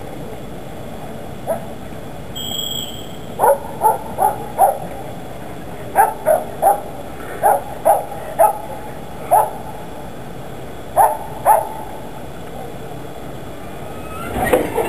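A dog barking about a dozen times in short, irregular bursts over a steady background hum. Near the end a louder rumble rises.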